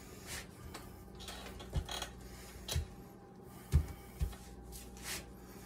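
Hands kneading pie-crust dough on a floured pastry mat on a kitchen counter: a few soft, scattered thumps and rubs as the dough is pressed and turned.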